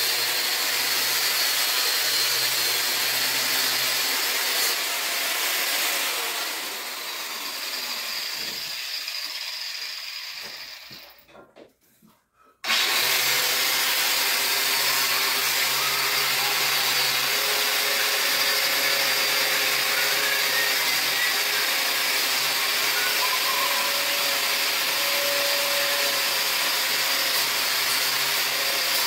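Handheld angle grinder working rust off a steel Model A frame, running steadily. About six seconds in it winds down, stops briefly, then starts again abruptly about halfway through and runs on steadily.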